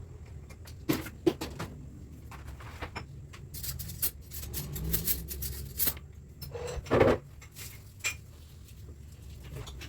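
Kitchen handling sounds: a scattered series of sharp knocks and clicks of utensils and dishes, the loudest about seven seconds in, over a low steady rumble.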